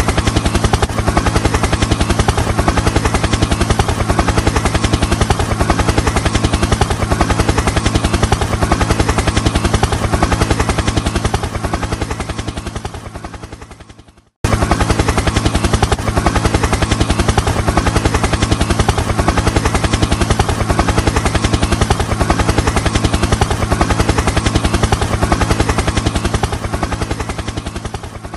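Helicopter rotor blades chopping in a fast, even beat over a steady engine drone. The sound fades out about halfway through, cuts off, then starts again at full level and fades out once more near the end.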